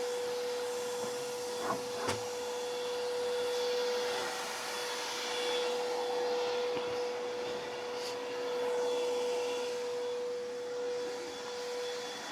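Portable table saw running, its motor giving a steady whine with the blade spinning, the noise swelling and easing a little. Two light knocks about two seconds in.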